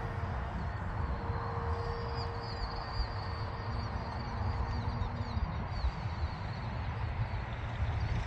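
Wind buffeting the microphone with a steady low rumble, with faint high bird chirps repeating from about two seconds in to past the middle.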